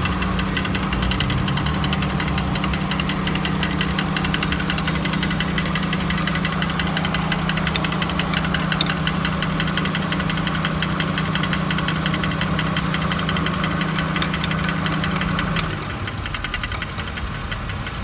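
A 1999 Honda Accord's engine running with a grinding noise: rapid, even ticking over a steady hum. The hum and some of the loudness stop abruptly about fifteen seconds in, while the engine keeps running.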